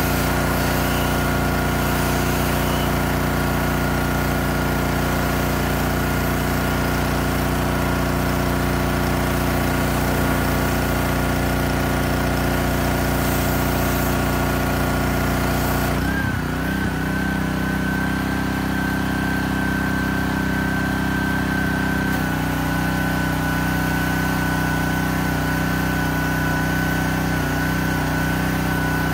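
Honda-engined gas pressure washer running steadily while its wand sprays the building's siding. The engine note shifts about halfway through.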